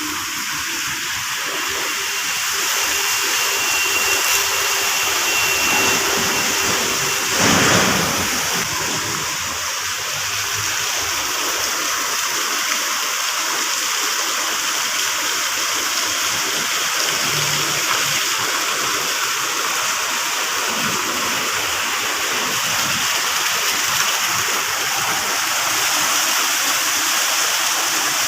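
Water rushing and splashing in a steady heavy flow, with a brief louder surge about seven seconds in.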